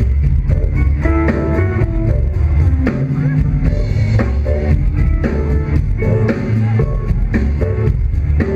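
Live rock band playing: electric guitar lines over heavy low end and a steady drum-kit beat, heard from the crowd.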